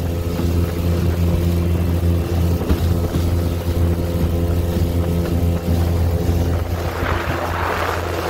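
Jon boat's outboard motor running at a steady drone while underway, with water rushing and splashing along the hull; the rush of water grows louder near the end.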